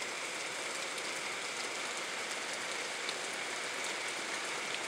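Steady rain falling on the trees and grass, with scattered single drops ticking close by.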